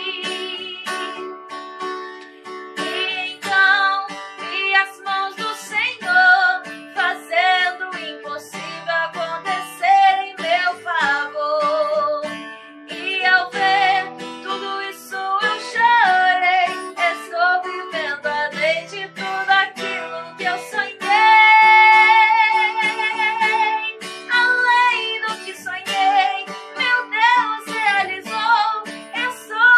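Background music: a Portuguese-language Christian song sung over acoustic guitar, with a long held note about two-thirds of the way through.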